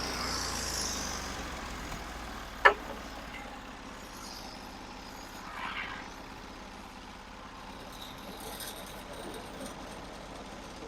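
Norwood HD36 portable sawmill's gas engine running steadily and slowly getting quieter, with one sharp clack about two and a half seconds in.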